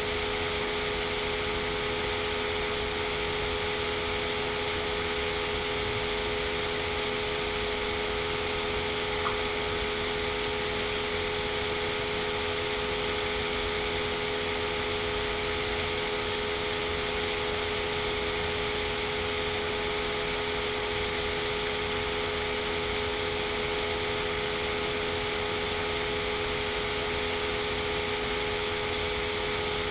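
Steady machine hum with a constant hiss and a few fixed tones, unchanging throughout, with one faint tick about a third of the way in.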